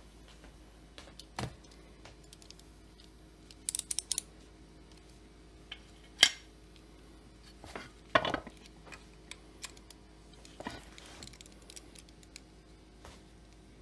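Small metal parts and hand tools clinking and clicking on a workbench during chainsaw crankcase assembly: scattered light taps, a brief metallic jingle about four seconds in, and two louder clacks around six and eight seconds.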